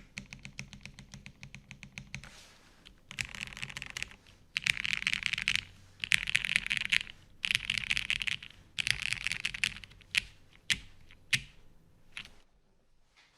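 Custom TGR Jane V2 mechanical keyboard being typed on. It has a carbon fibre half plate, lubed retooled MX Black linear switches and Durock V1 stabilisers. Quick, even typing gives way to five bursts of very rapid keystrokes about a second each, then a handful of single key presses near the end.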